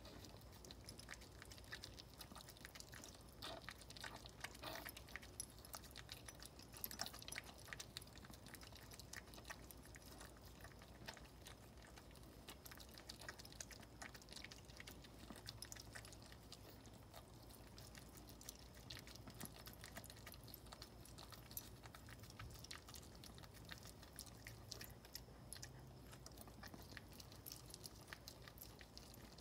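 Faint wet licking and mouthing as a Maltese mother dog cleans her newborn puppy: a run of small clicks and smacks, busiest about four to seven seconds in.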